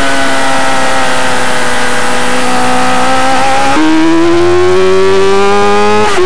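Racing motorcycle engine at high revs, heard from onboard while leaned through a corner. The pitch holds and sags slightly, then jumps up a little under four seconds in and climbs steadily as the throttle opens onto the straight, with a short dip just after six seconds.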